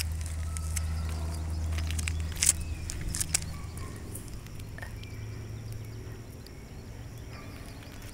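Scattered scuffs and clicks of footsteps on gritty asphalt, the loudest about two and a half seconds in, over a low steady hum that is strongest in the first couple of seconds.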